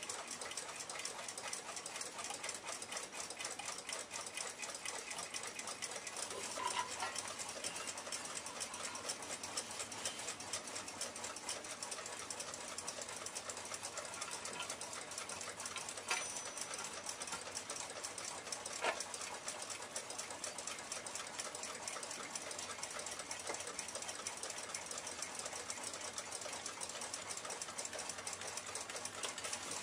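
A running 1906 Western Clock Company pin-lever alarm clock movement ticking rapidly and steadily. A few short knocks, the loudest about two-thirds of the way through, come from the clock being handled.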